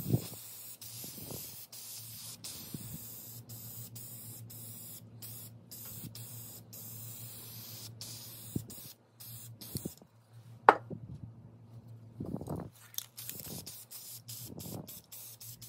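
Aerosol can of Rust-Oleum 2X white satin spray paint hissing in long bursts with short breaks, pausing briefly about two-thirds through and then spraying again in shorter bursts. A single sharp click sounds about eleven seconds in.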